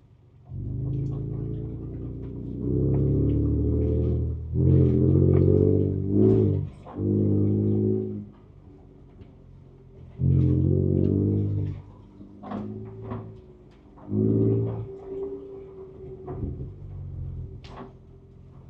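The Ford Ranger Raptor's twin-turbo V6, heard from inside the cab, revving in about five short throttle bursts with quieter pauses between them, as on a slow off-road crawl. A few sharp knocks sound in the quieter stretches.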